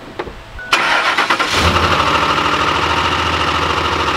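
A 2005 Ford F-150's 5.4-litre Triton V8 starting: the engine catches suddenly under a second in, with a rapid rattling knock for about the first second, then settles into a steady idle. The owner puts the loud start-up knocking down to a dry start, with no oil yet on the internals after the truck has sat.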